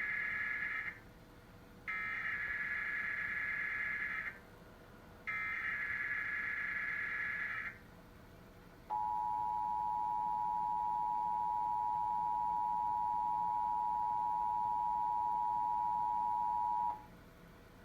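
Emergency Alert System SAME header: the end of the first buzzy data burst, then two more bursts, each about two and a half seconds long. About nine seconds in comes the steady two-tone EAS attention signal, which holds for about eight seconds and then cuts off. This is the opening of a Required Monthly Test relay.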